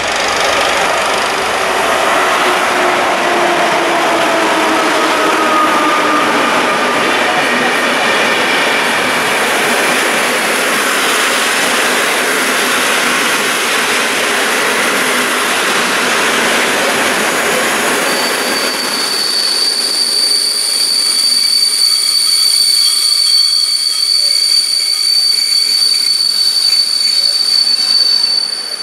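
PKP Intercity passenger train hauled by an EU160 electric locomotive running past along the platform. The loco's motor whine falls in pitch over the rolling wheel noise. From about two-thirds of the way through, a steady high-pitched squeal from the coaches' wheels holds to the end.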